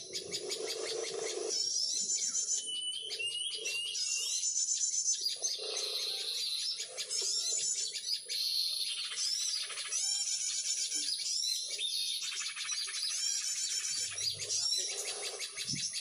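Dense chattering of many small birds: rapid overlapping chirps and quick up-and-down whistles, with a lower note repeating underneath, loudest near the start. The chorus may be wild birds answering, or the recorded crecetan lure chatter itself, which trappers play to draw birds in.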